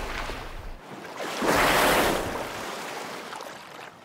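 Open-sea water and wind noise from a boat at sea, with a louder rushing whoosh for about a second in the middle before it eases off.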